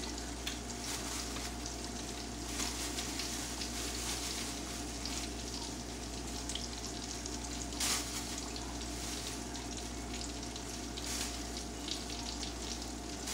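Battered porgy and zucchini slices frying in hot oil in a skillet: a steady sizzle, with a few brief louder crackles as more battered zucchini pieces are laid into the oil.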